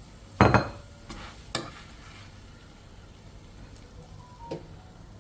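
Ghee-fried paratha on a hot tawa giving a faint sizzle, broken by one sharp utensil knock about half a second in and a few lighter knocks as the paratha is lifted off the griddle.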